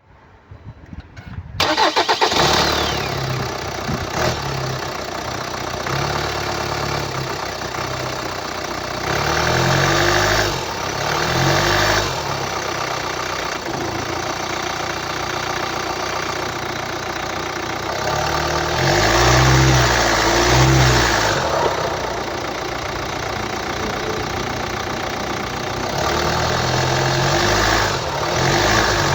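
Hyundai ix35's 2.0-litre four-cylinder D4HA common-rail diesel starting up about a second and a half in, then idling unevenly, its running swelling and dropping at intervals. The uploader puts this odd engine noise down to a faulty engine control unit.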